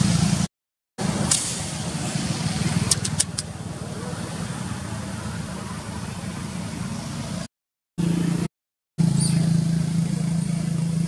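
Steady low hum of a road vehicle's engine running nearby, with a few sharp ticks in the first few seconds. The sound drops out completely three times where the recording is cut.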